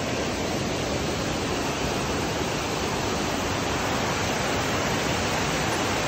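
Waterfall and fast river water rushing, a steady, even noise with no break.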